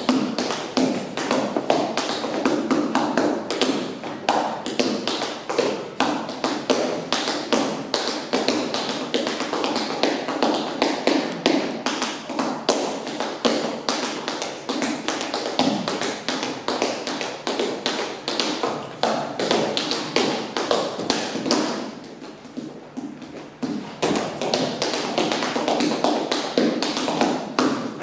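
Unaccompanied tap dancing: rapid, rhythmic runs of tap shoes striking a wooden stage floor, easing off for a couple of seconds toward the end.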